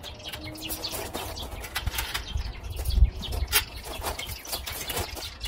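Scattered light clicks and rattles of wire shelves being handled and set onto a thin metal greenhouse frame, over a low rumble of wind on the microphone that peaks about three seconds in.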